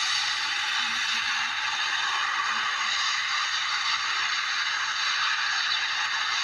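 Jet engines of an Airbus A320 airliner at full take-off thrust on its take-off roll: a steady rushing noise with a few faint whining tones in it and hardly any deep rumble.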